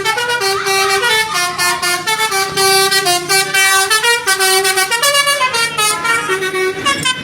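Bus 'telolet' Basuri horn, a multi-trumpet melody horn, playing a quick tune: several tones sound together and jump from note to note in short steps.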